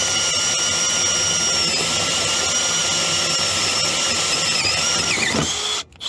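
Milwaukee M12 cordless drill spinning a Greenlee carbide hole cutter through the metal bottom of an electrical box: a steady high whine whose pitch sags slightly twice under load. Near the end it winds down and stops as the cutter breaks through.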